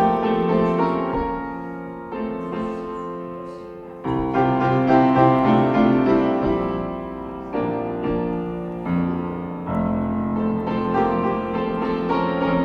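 Piano playing slow chords, each struck and left to ring and fade before the next, a new chord every second or two.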